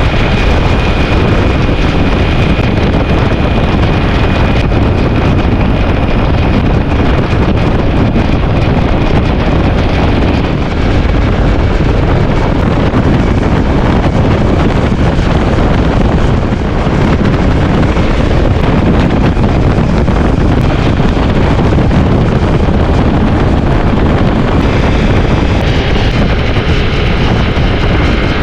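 Strong wind buffeting the microphone: a loud, steady, unbroken rush.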